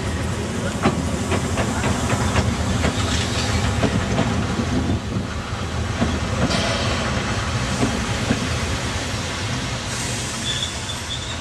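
Narrow-gauge steam train rolling slowly past on the rails: the wheels click over rail joints over a steady low rumble, with a spell of hissing steam a little after the middle.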